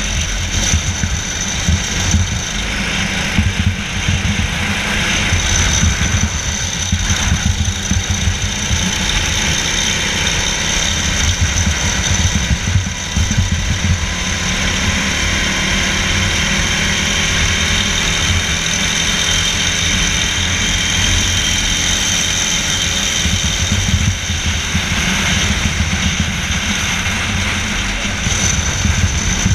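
Racing kart engine running hard on track, its note climbing slowly along a straight about halfway through. Heavy wind buffeting on the onboard microphone throughout.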